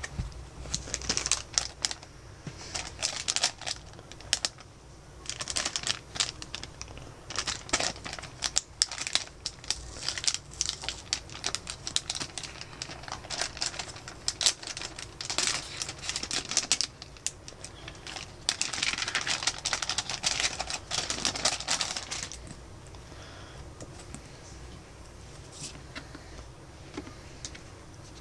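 Plastic packaging crinkling and rustling in bursts as it is handled and pulled open by hand. The crinkling dies down about 22 seconds in.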